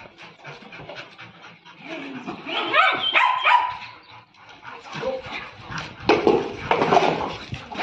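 Several dogs barking and yelping in excited play, loudest about two to three and a half seconds in and again around six to seven seconds in.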